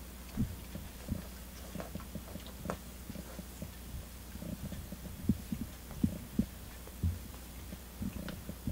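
Domestic cat grooming its tail fur: soft, irregular licking sounds, a few stronger ones in a cluster past the middle, over a low steady hum.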